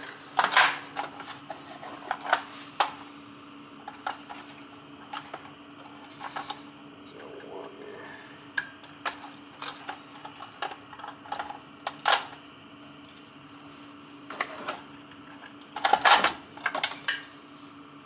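Small clicks, taps and rattles of gloved hands handling wires, connectors and tools while wiring a replacement primary control on an oil burner, with a louder run of clicks about sixteen seconds in. A steady low hum runs underneath.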